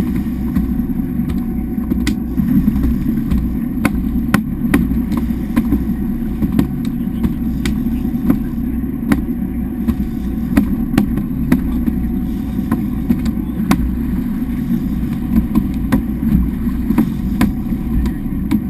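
Boat engine running steadily at a constant pitch, with frequent sharp knocks and clicks over it.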